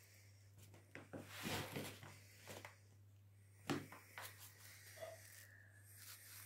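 Faint, scattered scratching and rustling of a hamster's small claws scurrying across a cardboard box floor, with a sharper scrape about two-thirds of the way through, over a steady low electrical hum.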